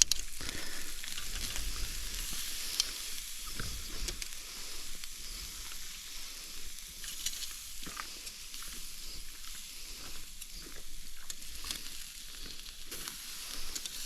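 Tri-tip steak sizzling over a campfire: a steady frying hiss with scattered sharp crackles and pops.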